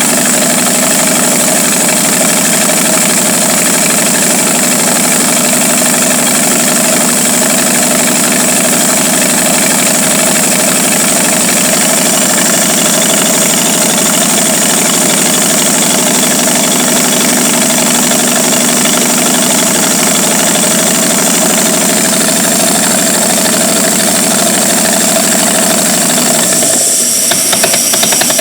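Studebaker Commander flathead straight-six in a 1949 Studebaker 2R5 truck idling steadily, the engine that, by its owner's account, has a vacuum leak and won't stay running unless the carburetor is fully choked. Near the end the sound briefly changes and then runs a little louder and rougher.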